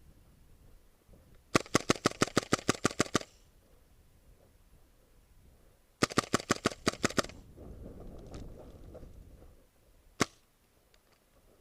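Airsoft gun firing two rapid bursts of about a dozen shots each, roughly eight shots a second, then a single shot near the end.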